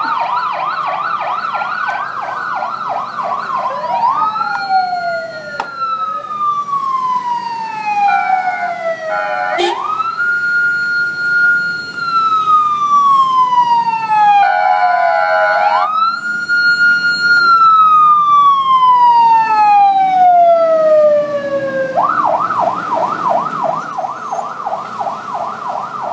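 Electronic siren. It starts with a fast yelp, then runs through about four long wails, each jumping up in pitch, holding briefly and sliding slowly down. Short bursts of a different rapid warble come twice, and the fast yelp returns near the end.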